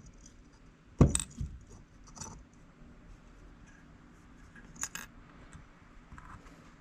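Small metal parts of a power steering pump clinking and tapping against each other as they are fitted together by hand. A sharp clink comes about a second in, followed by a few lighter ticks, and another clink comes near five seconds in.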